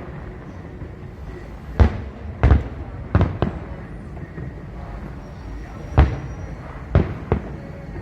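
Fireworks display: aerial shells bursting overhead in sharp bangs, about seven in irregular succession, two of them close together a little past three seconds in and two more near the end.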